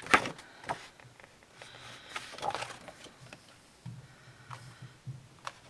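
Packaging being handled: scattered light rustles and clicks of paper and plastic wrap, with one sharp click right at the start and a longer rustle a couple of seconds in.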